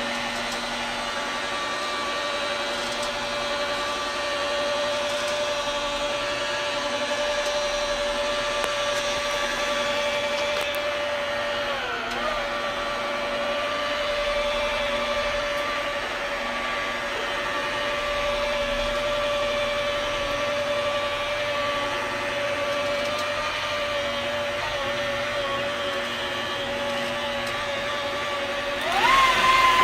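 Electric power tool motor running with a steady whine. Its pitch dips briefly about twelve seconds in, then rises sharply near the end as the tool speeds up and gets louder.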